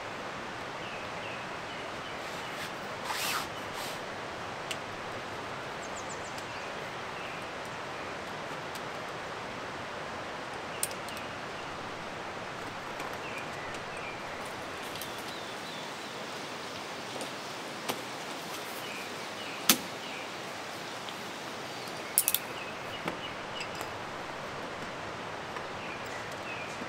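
Steady rushing of a valley stream, with a few sharp clicks and knocks scattered through, the loudest about three quarters in, and faint short high chirps.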